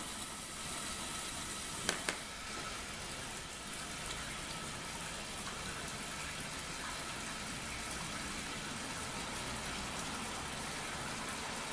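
Water-jet aspirator pump on a running tap, a steady rush of water as it pulls a vacuum. Two short clicks about two seconds in.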